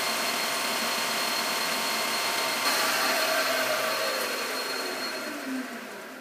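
Metal lathe running with a steady high whine. About three seconds in it is switched off and the spindle winds down, its pitch falling and the sound fading away.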